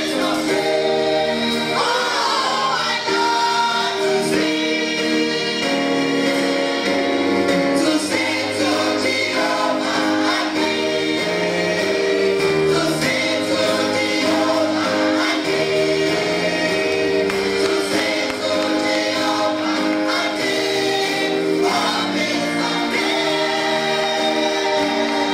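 Church choir of mixed voices singing a gospel song in harmony through microphones, holding long chords that shift from one to the next.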